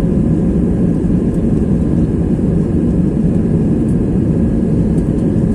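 Passenger airliner heard from inside the cabin during takeoff: a steady, loud low rumble of engines and rushing air, with a faint steady hum above it.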